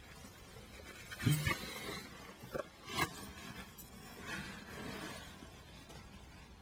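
A few light knocks and clinks with soft rustling, the sounds of hand work on a motorcycle's spin-on oil filter as it is tightened by hand.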